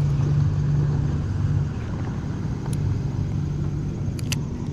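A motor running with a steady low drone, with a couple of sharp clicks near the end.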